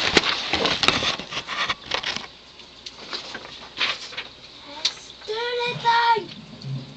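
Rustling and clicking handling noise for about the first two seconds. About five seconds in, a short high-pitched two-note vocal call.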